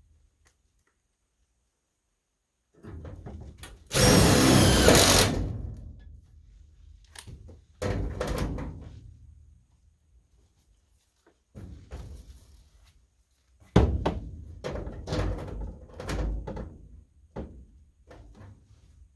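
Knocks, clatter and rattles of hands and tools working on sheet-metal ductwork, starting after about three seconds of silence. About four seconds in comes one loud, harsh burst lasting just over a second.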